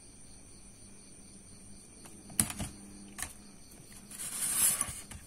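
Small plastic and metal RC drivetrain parts clicking as they are picked up and handled on a tabletop: a few sharp clicks about halfway in, then a longer scraping rustle near the end.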